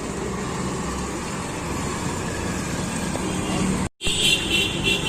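Steady background traffic noise. After a brief cut, a short run of quick, high-pitched beeps.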